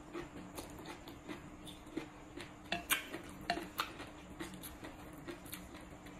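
Close-up eating sounds: wet chewing of papaya salad and sea grapes, and light clicks of wooden chopsticks against a ceramic plate and bowl. They come as irregular small clicks and ticks, a few a second.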